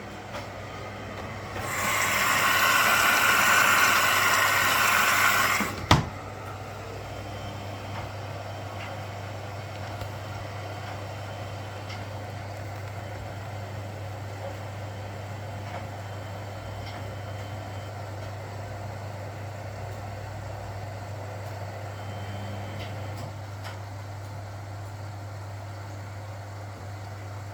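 Washing machine: a loud rushing hiss for about four seconds, cut off by a sharp click, then a steady low hum.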